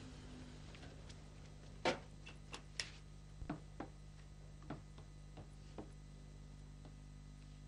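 Scattered light taps and knocks, about eight spread over several seconds, as a man moves about a room dusting the furniture and handling a basket, over a steady low hum.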